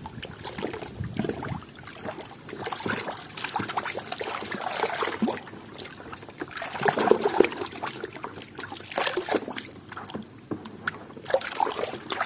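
Water splashing and trickling as toy cars are washed and rinsed by hand, in uneven swells with scattered short clicks and knocks of the toys being handled.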